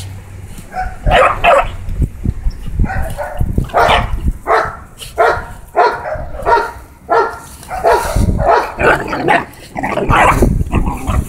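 Pit bull puppies play-fighting, giving short, repeated barks, about one or two a second.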